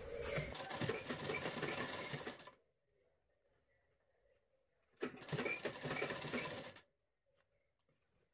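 Sewing machine running in two short bursts, about two and a half seconds and then nearly two seconds after a pause, stitching a folded hem of fabric and lining.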